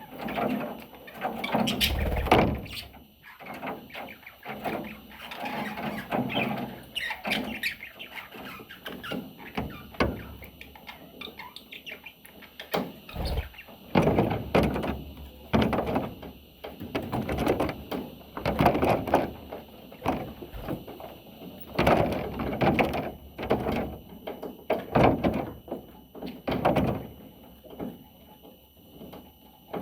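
Budgerigar chattering and chirping in a long, uneven stream of short calls and squeaks, in spurts with brief pauses.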